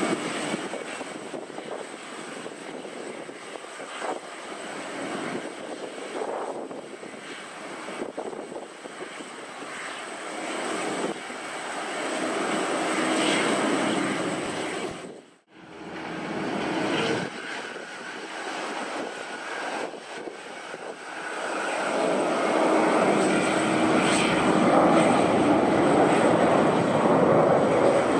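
Jet airliner engines: a wide-body twin-jet running along the far runway, then, after a sudden cut, another wide-body twin-jet at takeoff power. The second is the loudest, growing louder over the last several seconds as it lifts off and climbs close by.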